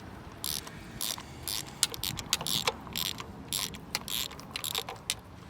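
Hand socket ratchet clicking in short, uneven strokes as it works a spark plug out of the engine, a 5/8 spark plug socket on an extension.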